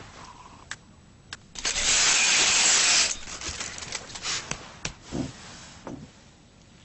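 A dry biscotte (French rusk) being crushed: a few sharp cracks, then a loud dense crunching for about a second and a half, followed by scattered smaller crackles and a couple of soft thumps.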